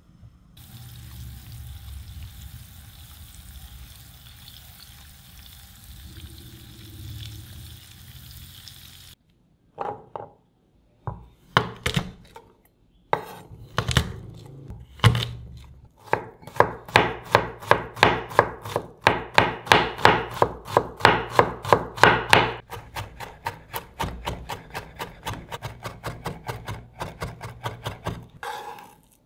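Butter melting in a nonstick pan with a steady soft hiss, then a kitchen knife cutting garlic cloves on a wooden cutting board: a few separate slices, then quick steady chopping at about three strokes a second, then lighter, faster mincing strokes.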